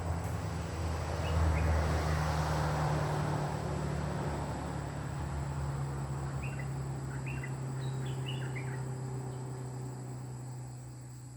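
A bulbul giving short chirpy calls, two early and then a quick run of five or six about two-thirds of the way in, over a steady low hum that fades near the end.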